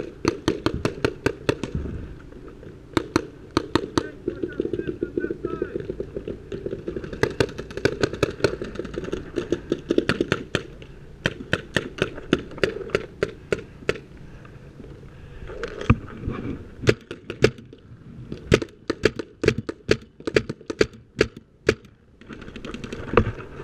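Paintball markers firing in rapid strings of sharp pops, several shots a second, with short breaks between volleys.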